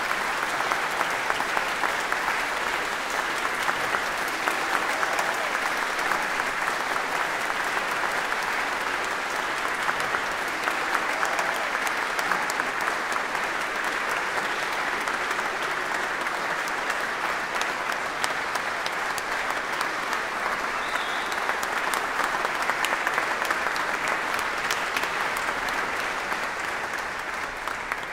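Audience applauding: a steady, dense clapping of many hands that fades out near the end.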